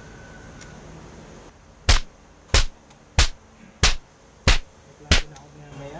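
Six sharp, evenly spaced hits, about one every two-thirds of a second, starting about two seconds in.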